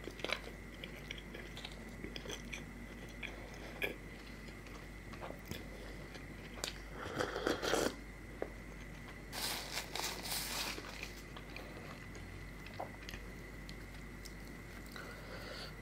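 Close-miked chewing and biting mouth sounds of a person eating, with scattered small clicks. About seven seconds in comes a loud slurp from a small cup, followed a couple of seconds later by another noisy stretch of slurping and chewing.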